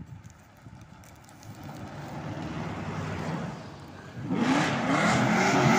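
A brown classic American car rolls by on gravel with a modest engine sound. Then, about four seconds in, a Plymouth muscle car in Petty-blue race livery comes up loud, its engine revving up and down as it nears.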